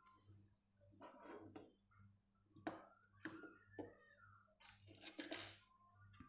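Faint light clicks and clinks of a bent metal-wire phone stand being handled and set down on a table, with a few short scrapes, over a low steady hum.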